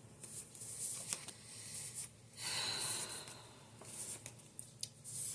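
Tarot cards being handled: quiet papery rustling and sliding with a few light clicks, in three short bouts.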